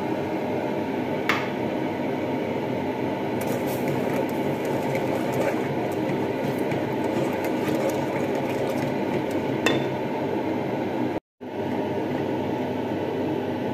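A wooden spoon stirs coconut milk in an aluminium pot, knocking sharply against the pot twice, once early and once later on. Under it runs a steady rushing background noise, and the sound cuts out for a moment near the end.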